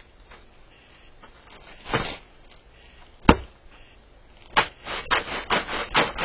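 Chunks of ice being smashed against a hard surface: a thud about two seconds in, a sharp crack a little after three seconds, then a quick run of about six knocks near the end.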